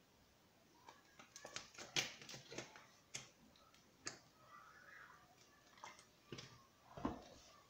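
Faint, scattered clicks and knocks of a plastic cooking-oil bottle being handled while oil is poured into a pot. The sharpest knock comes about two seconds in.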